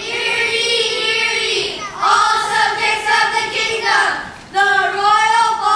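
Children singing, high voices in drawn-out phrases with a short break about four seconds in.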